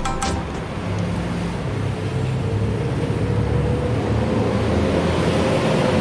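Motor running steadily with a low, even rumble and a faint hum above it; typical of the air-cooled single-cylinder engine of a Yamaha Serow 225 motorcycle at idle.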